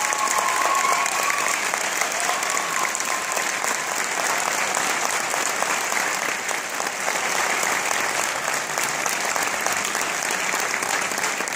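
A large audience applauding steadily after a choir performance, with a few voices calling out over the clapping near the start.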